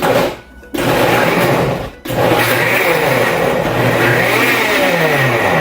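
Magiccos high-speed countertop blender running, crushing frozen passion fruit and Greek yogurt into ice cream. It gives a short burst, stops briefly, then runs loud with one brief drop about two seconds in, and its motor pitch wavers as the frozen load shifts.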